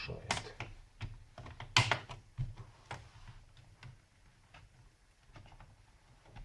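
Plastic clicks and taps from a laptop's case parts being handled and pried during disassembly, the loudest knock a little under two seconds in, then fainter scattered ticks.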